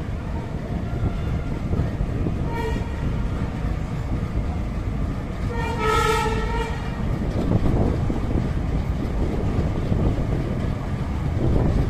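Train horn sounding twice over the steady running rumble of the train, heard from aboard: a short toot about two and a half seconds in, then a longer blast of about a second around six seconds in.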